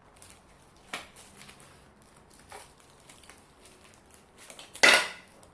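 Packaging being handled, with soft crinkling and rustling, a short click about a second in and a much louder sharp crackle near the end.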